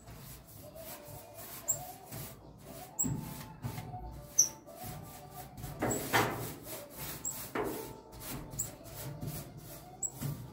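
Repeated rubbing and scrubbing strokes, many short strokes with a few heavier ones about six and seven and a half seconds in, with small squeaks between them.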